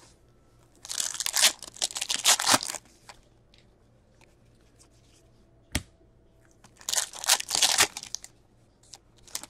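Hockey card pack wrappers torn open and crinkled, in two bursts of ripping about five seconds apart, with a single sharp click between them.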